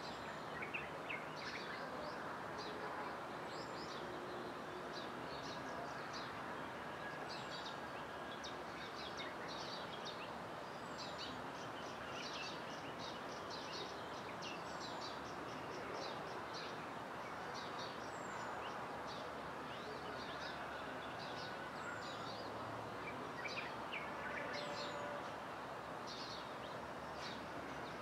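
Many birds chirping in short repeated calls over a steady background hiss, with a faint, thin, high falling note repeating about every two seconds.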